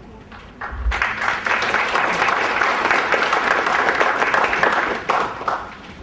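Audience applauding, starting about a second in and dying down about five seconds in.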